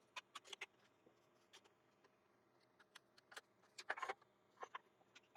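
Faint scattered clicks and light knocks, with a small cluster about four seconds in: a wooden bowl being handled and unscrewed from a lathe's worm screw chuck.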